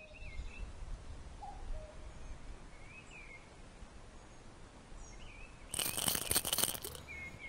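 Faint birds calling, short whistled chirps that rise and fall in pitch, over a low outdoor background rumble. About three-quarters of the way in a loud rustling noise lasts about a second.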